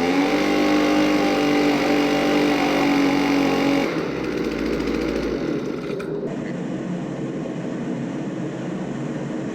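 Echo PB-2100 leaf blower's small two-stroke engine running on its freshly rebuilt carburetor. It revs up at the start, holds high speed for about four seconds, then drops back to a lower, rougher running speed with the jets not yet adjusted.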